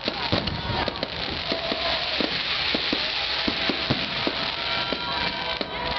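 Fireworks display: a dense, continuous crackle of bursting shells with many sharp pops and bangs throughout, and a few thin whistling tones.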